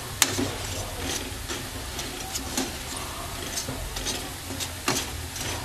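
Hot oil sizzling in a steel pot as balls of Filipino street food deep-fry, with metal tongs stirring them and clicking against the pot. One sharper click comes just after the start and another near the end.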